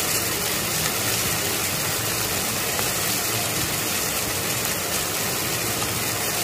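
Chopped onion, tomato and capsicum frying in oil in a non-stick pan, giving a steady sizzling hiss.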